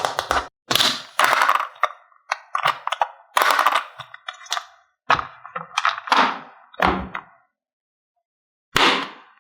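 Hard plastic toy pieces and diecast cars being handled: a quick, irregular run of sharp clicks, knocks and clatters, with a lull before one last knock near the end.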